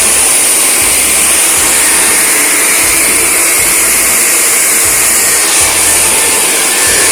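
Handheld hair dryer blowing steadily at full power as hair is blow-dried straight, a loud even rushing hiss.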